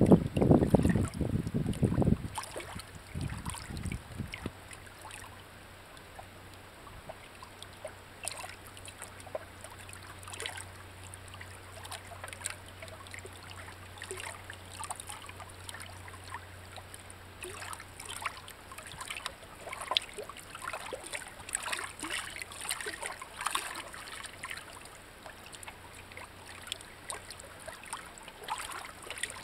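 Shallow stream water trickling over rocks, heard as scattered faint crackles and ticks. A brief low rumble of wind or handling noise on the microphone comes in the first two seconds.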